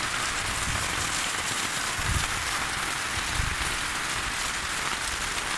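Heavy rain falling steadily, a dense even hiss, with a couple of brief low rumbles of wind on the microphone.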